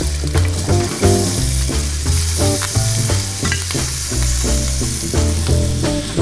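Raw beef cubes sizzling loudly as they drop into a very hot sauté pan with olive oil, the first stage of browning for picadinho. Background music with a bass line plays under it.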